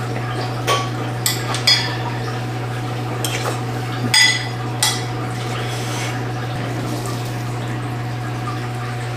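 A metal spoon and chopsticks clinking against ceramic bowls while food is served: about half a dozen short, ringing clinks in the first five seconds, then only a steady low hum.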